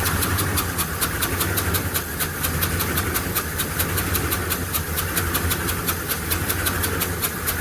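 Ford 6.2L V8 idling with a rapid, regular sharp ticking: compression blowing out past a leaking pressure-transducer hose fitted in a spark plug hole.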